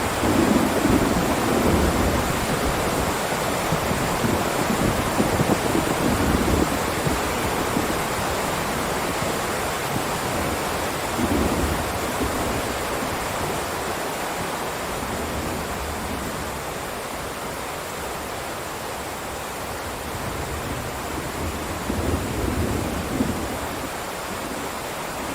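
Heavy rain downpour as a steady, dense hiss, with low rumbling swells rising and fading several times: through the first several seconds, again about halfway through and again near the end.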